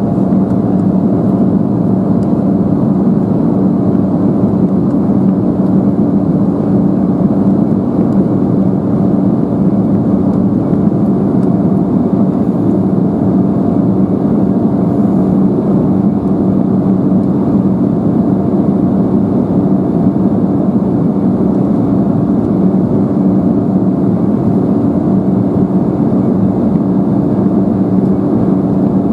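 Embraer 175 airliner cabin in flight: the steady drone of its two GE CF34-8E turbofan engines and the airflow, a constant low hum with a few held tones.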